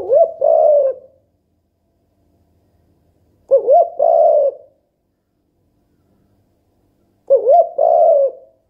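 Spotted dove cooing: three calls about three and a half seconds apart, each a short gliding note followed straight away by a longer coo.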